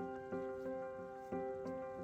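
Gentle instrumental background music, sustained notes struck at an even pace of about three a second.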